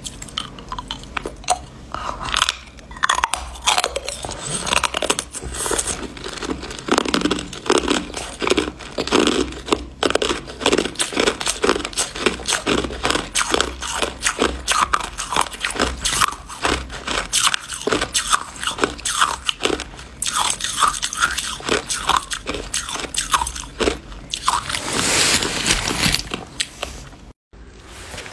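Hard clear ice cubes bitten and chewed close to the microphone: dense, irregular crunching and cracking of ice between the teeth. It breaks off briefly near the end.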